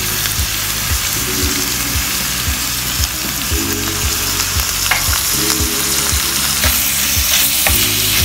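Raw goat mince sizzling in hot oil with browned onions, freshly added to the pan and being stirred with a wooden spatula. The steady sizzle is broken by a few sharp scraping ticks from the spatula.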